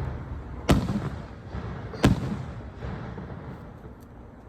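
Fireworks display: two sharp bangs about a second and a half apart, each trailing off in a low rumbling echo.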